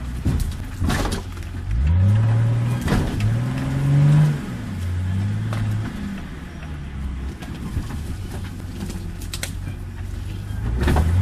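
Nissan Patrol 4x4's engine revving in short bursts while crawling through the trees. It rises in pitch twice between about two and four seconds in, then settles back to a low, steady run. Several sharp knocks and cracks are scattered through it.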